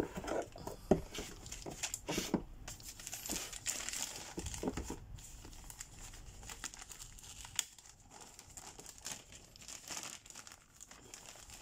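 Anti-static plastic bag around a motherboard crinkling and rustling as hands handle it and work the board out. The crinkling comes in irregular spurts, busiest in the first few seconds and sparser after.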